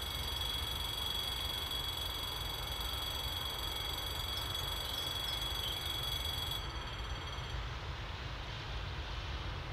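Level-crossing warning bell sounding as a steady high-pitched electronic ring, cutting off suddenly about two-thirds of the way in, over a low rumble of wind on the microphone.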